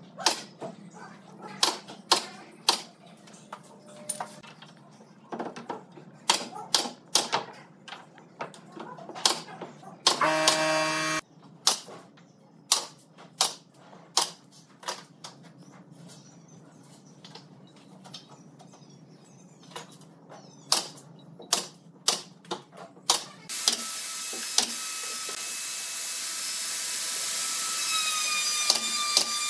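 Woodworking at the bench: a string of sharp, irregular knocks and clicks of tools on wood, with a brief buzz about ten seconds in. About three-quarters of the way through, a power tool starts and runs steadily with a whine over a hiss.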